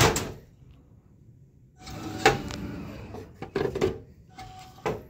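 Delivery port of a Dixie Narco BevMax vending machine being worked by hand: a loud rattle right at the start, then the port's plastic door pushed open and a plastic soda bottle pulled out, with a run of knocks and clicks and a last sharp click near the end.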